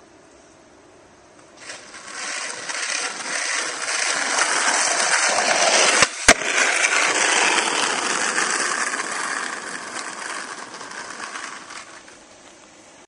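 Skateboard wheels rolling on rough asphalt, growing louder as the board approaches. About six seconds in come two sharp clacks in quick succession, the tail pop and landing of an ollie, then the rolling fades away.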